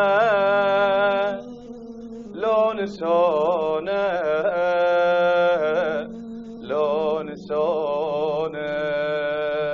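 A solo voice singing an Arabic lament unaccompanied by beat, drawing out long held notes with wavering ornaments and brief pauses for breath, over a steady low drone.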